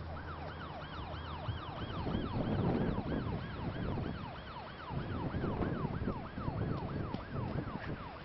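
Emergency-vehicle siren on a fast yelp, its pitch sweeping up and down about three times a second, with bursts of low rumble over it.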